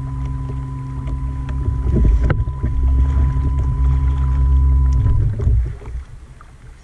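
A motor on the raft humming steadily at one unchanging pitch, with a single sharp knock a little over two seconds in; the hum cuts off about five seconds in.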